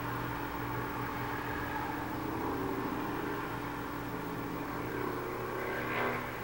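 Motors of a CNC microscope stage running as the stage moves, a steady hum with whining tones that shift in pitch partway through and briefly grow louder near the end.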